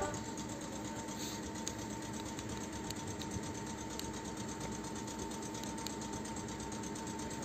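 Air compressor of a Polish EN71 electric multiple unit running steadily: an even, rapid mechanical beat with a thin steady whine over it.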